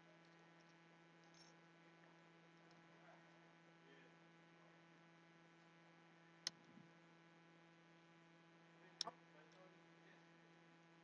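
Near silence with a steady low electrical hum, broken by a single sharp click about six and a half seconds in and a quick double click about nine seconds in, from small parts of an opened iPhone 6s being handled.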